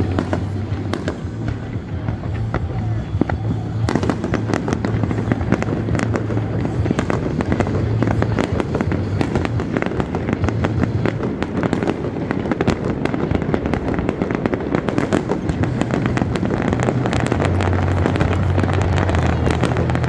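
Aerial fireworks display going off without pause, a dense run of bangs and crackles that thickens about four seconds in.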